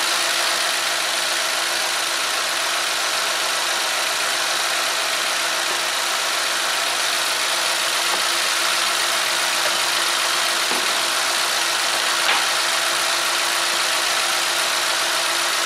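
The four-cylinder Ecotec engine of a 2012 Chevy Equinox idling steadily, with an even hiss. There is one faint tap about twelve seconds in.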